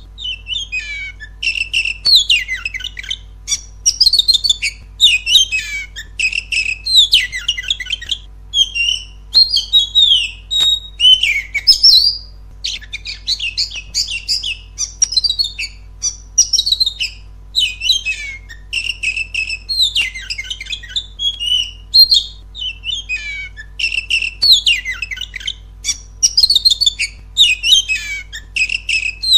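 Oriental magpie-robin (kacer) singing loudly: phrase after phrase of varied whistles, sweeping notes and fast chattering trills, with short breaks between phrases.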